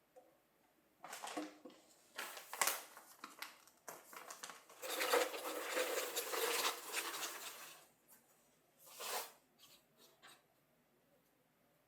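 Rustling and crinkling of something being handled, in short irregular bursts, with a longer rustle in the middle and a brief one near the end.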